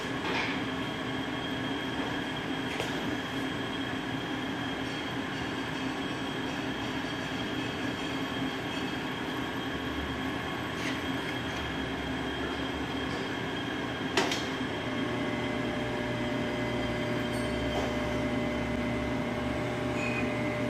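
Web-handling roller line running, a clear plastic film web travelling over its rolls: a steady mechanical whir with a few held whining tones. There is a single sharp click about fourteen seconds in.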